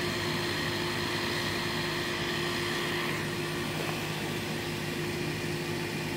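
Steady machine hum, with a constant drone and a few fixed tones over an even hiss.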